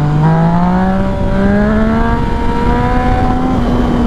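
Yamaha FZ-09's three-cylinder engine pulling under acceleration, its pitch rising steadily, with wind rushing over the helmet microphone.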